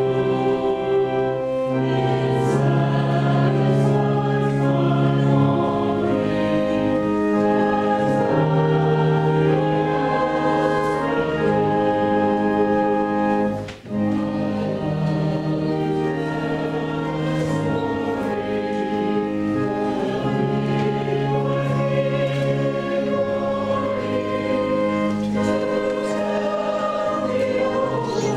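A choir singing a communion hymn in slow, long-held notes, with one very short break about halfway through.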